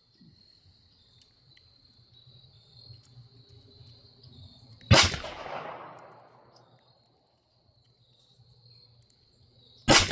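Taurus TX22 Competition .22 LR pistol fired twice, about five seconds apart, each shot a sharp crack with a ringing echo that fades over about a second and a half.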